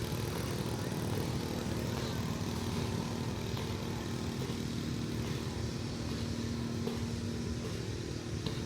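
A motor engine running steadily, a low even drone with a steady pitched hum.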